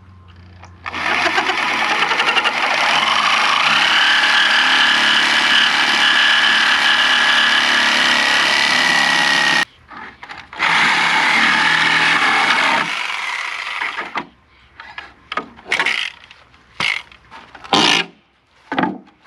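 A Sawzall reciprocating saw cutting through the twisted nails holding pallet boards: two long runs of steady buzzing with a brief stop between, the motor's pitch rising partway through the first. It is followed by several short, sharp knocks and clatters.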